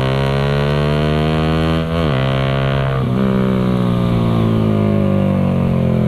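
Suzuki Raider 150 carb's single-cylinder four-stroke engine running loud and full through an aftermarket Creed open exhaust pipe at road speed. The engine note drops sharply in pitch twice, about two and three seconds in, as gears change.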